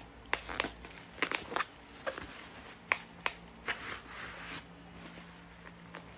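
Bubble wrap crinkling and rustling as hands grip and shift bubble-wrapped packages. Sharp crackles come in quick succession for the first few seconds, then softer rustling.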